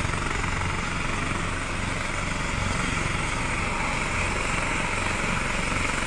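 Steady engine drone with a low hum under a broad hiss, unchanging throughout.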